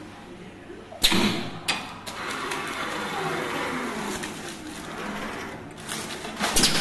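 Automatic coil-tube winding machine cycling as the finished coiled air tube comes off its mandrel: a sharp clack about a second in, a second click, then several seconds of steady hissing and rattling from the mechanism.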